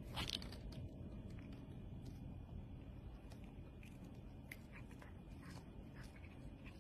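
A cat biting and chewing a cooked shrimp: faint, scattered small clicks and crunches, the strongest just at the start.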